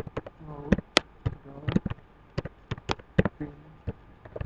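Computer keyboard typing: a run of sharp, irregular keystroke clicks, with a few short murmured syllables in between.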